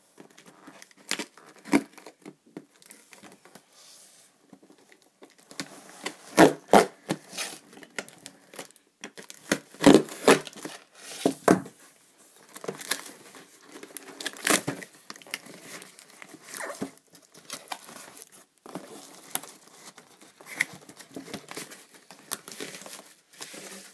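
Packing tape being ripped off a cardboard shipping box and the flaps pulled open, with cardboard crinkling in irregular sharp bursts.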